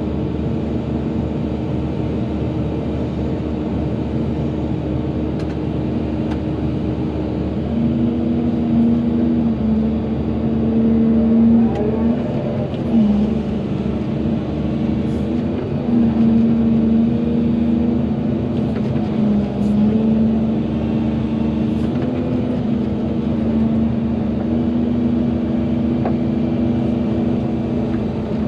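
Volvo EC220DL excavator's diesel engine running steadily under working load, its note stepping up and easing back several times as the load comes and goes.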